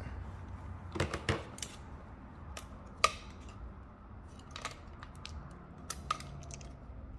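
Scattered light plastic clicks and knocks as the AAA batteries in a graphing calculator's rear battery compartment are handled, with one sharper click about three seconds in, over a low steady hum.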